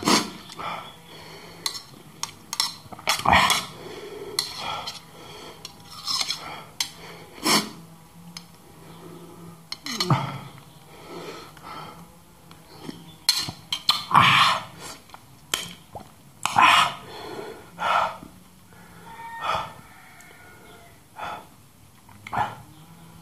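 Metal spoon clinking and scraping against a steel plate, mixed with close-miked chewing, lip smacks and loud breathing while eating.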